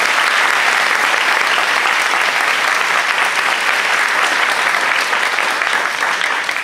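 Audience applauding steadily in a hall, the clapping thinning out near the end.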